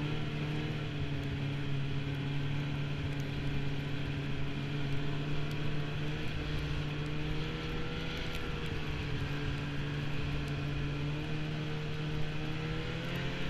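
Snowmobile engine running at a steady cruising pace, its pitch easing slightly down partway through and rising again near the end, with a rushing hiss of wind and track noise over the helmet-mounted microphone.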